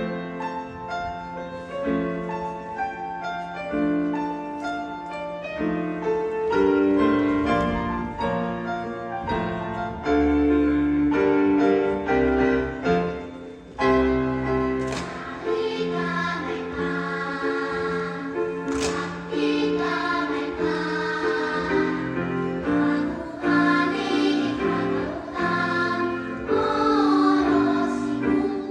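Children's choir singing with instrumental accompaniment, the music starting suddenly at the very beginning and going on as a sustained, changing chorus.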